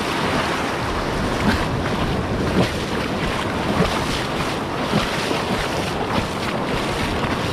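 Breaking surf washing through the shallows, with wind buffeting the microphone in an even, steady rush.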